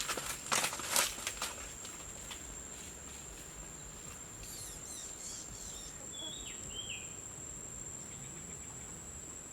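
Insect ambience: a steady, high-pitched insect trill, with a few rustles in the first second and a half and two short chirps a little after the middle.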